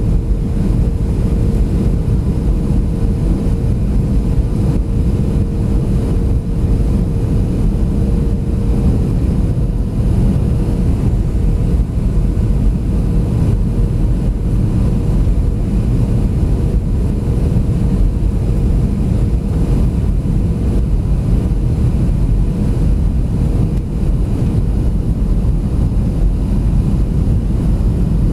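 Cabin noise of a Boeing 737-700 in flight on approach with flaps extended: a loud, steady rush of airflow under the drone of its CFM56 turbofan engines. A steady hum sits on top of it and weakens about a third of the way in.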